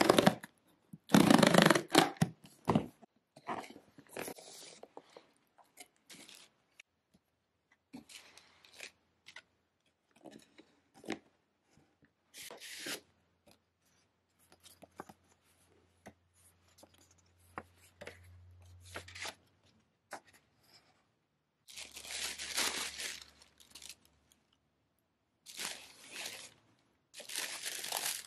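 A cardboard shoe box being opened by hand: the tear strip is ripped open loudly about a second in, followed by scattered rustling and handling of cardboard and paper, and bursts of tissue paper crinkling near the end.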